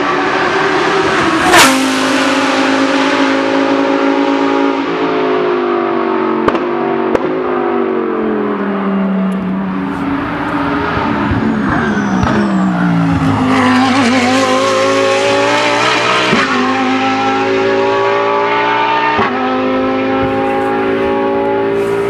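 Lamborghini Huracán GT3 race car's V10 engine running hard on track. Its note drops in steps through gear changes, then climbs again through several shifts. A sharp crack comes about a second and a half in.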